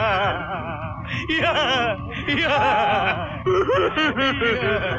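A man laughing loudly in long, wavering, exaggerated peals and choppy bursts, then a man's comic wailing cry near the end.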